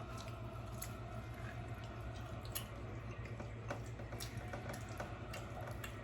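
Close-up eating sounds: scattered soft, wet clicks and squishes of chewing, over a steady low hum.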